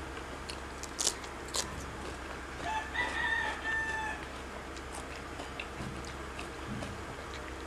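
A rooster crowing once in the background, a held call of about a second and a half starting near three seconds in. Two sharp clicks come about a second earlier, over a steady low hum.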